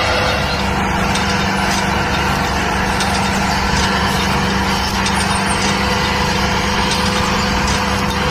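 Miniature model tractor running steadily while pulling a tine cultivator through loose soil: a continuous motor hum with a constant pitch.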